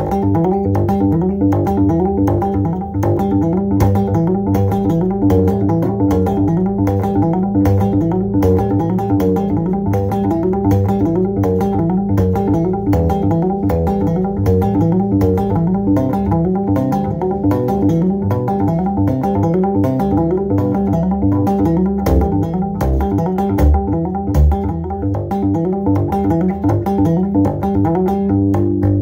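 Electric bass guitar played with the fingers: a fast, busy run of plucked notes, each with a sharp string click.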